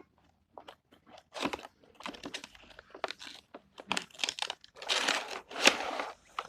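Toy packaging being torn open and crinkled by hand, in irregular crackling bursts that grow busiest near the end.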